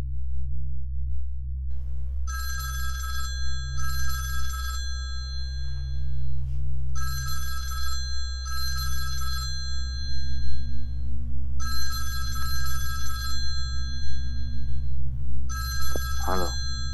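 Mobile phone ringing with an old-style telephone-bell ringtone, in double rings that repeat four times, over a steady low hum.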